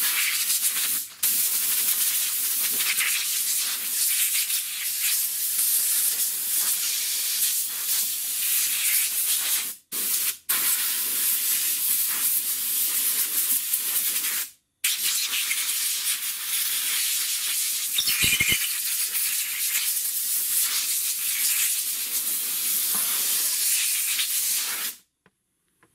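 Compressed-air blow gun hissing in long blasts, blowing dirt and debris off the top of a fuel tank around the fuel pump's lock ring. The air cuts off briefly twice, about ten and fifteen seconds in, and stops about a second before the end.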